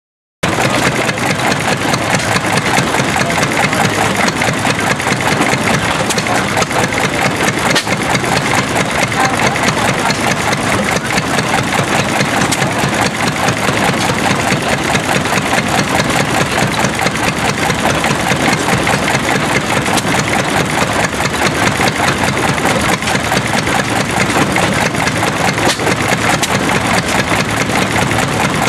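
Vintage Cushman stationary gas engine running steadily with a fast, even exhaust beat.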